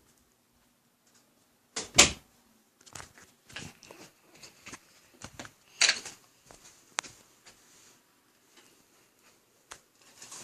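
Scattered knocks and light clattering of hard objects being handled, with a sharp loud knock about two seconds in and another near six seconds.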